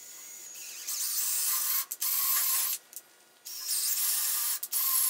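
Cordless drill turning a half-inch tap, run in about four short bursts with brief stops, chasing paint-clogged threaded holes in a motor bracket.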